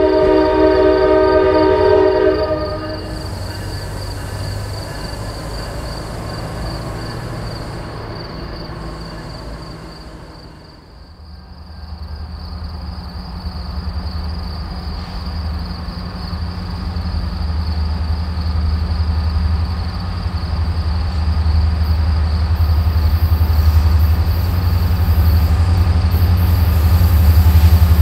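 A train's multi-note air horn sounds for the first couple of seconds. After a quieter stretch, the low rumble of Norfolk Southern freight H70's diesel locomotives builds steadily louder as the train approaches.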